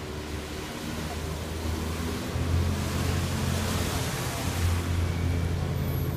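Ship's engine running with a steady low hum that grows louder as the vessel comes closer, over churning water from its propeller wash that swells in the middle.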